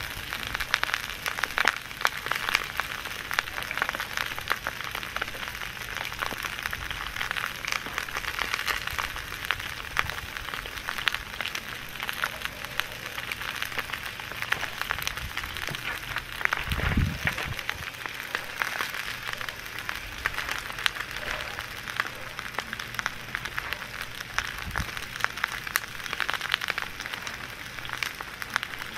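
Steady sizzling and crackling from sliced onions laid over hot stones in a cast-iron cauldron on a fire-heated hearth, with a dull thump about seventeen seconds in.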